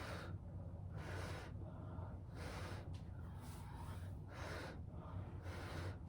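A person blowing hard by mouth in a series of short, breathy puffs, about one a second, pushing wet acrylic paint outward across a canvas in a Dutch pour.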